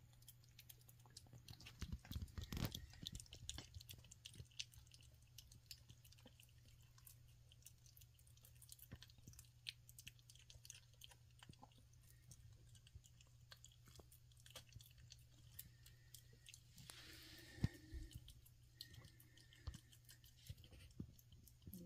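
A kitten eating wet cat food from a bowl: faint, quick chewing and smacking clicks, busiest about two seconds in, with one sharper click late on.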